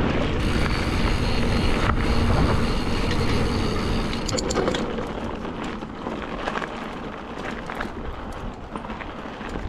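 Mountain bike riding down a dirt trail: steady rumble of tyres and wind, with a high buzzing tone over the first half. After about four seconds it runs quieter, with scattered light ticks.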